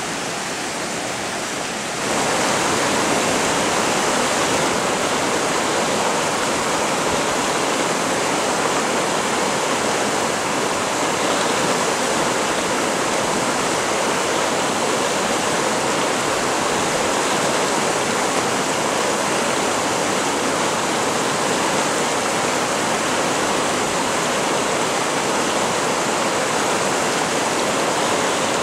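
Mountain river water rushing over rocks in whitewater rapids: a steady rush that gets louder about two seconds in.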